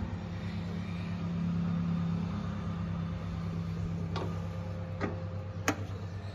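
Sonalika Tiger DI 47's three-cylinder diesel engine idling steadily, with a few sharp clicks about four, five and almost six seconds in.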